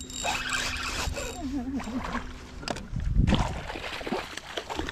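A spinning reel being cranked, then a hooked snook thrashing and splashing at the surface right beside the boat, with a heavy splash about three seconds in.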